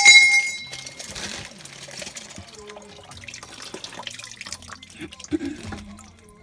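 Water trickling and dripping out of a drained household water line, let out because water was still standing in the line. A sharp metallic clank rings briefly at the very start.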